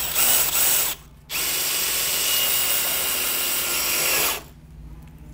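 Cordless drill/driver running in two bursts, driving a 2½-inch self-drilling deck screw into lumber with no pilot hole: a short run of under a second, then after a brief pause a steady run of about three seconds that stops.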